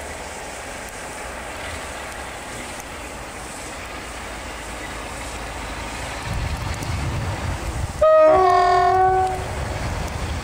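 British Rail Class 47 diesel locomotive approaching under power, its Sulzer engine rumbling louder from about six seconds in. About eight seconds in it sounds its two-tone horn in a blast of over a second, a brief high note dropping to a longer low one, then a short high note right at the end.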